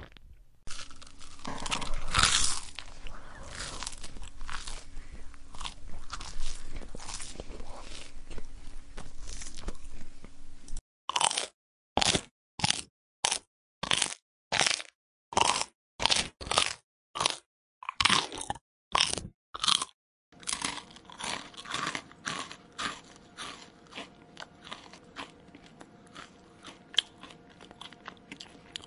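Close-up crunching of someone chewing crunchy food. It runs as dense, continuous crunching for about ten seconds, then breaks into separate chews about two a second with silence between them, then goes on as irregular crunching over a faint steady hum.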